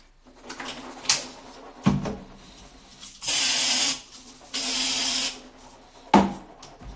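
Aerosol can spraying in two hisses of just under a second each, about three and four and a half seconds in. Knocks of items being handled at a sink come around them, the sharpest and loudest near the end.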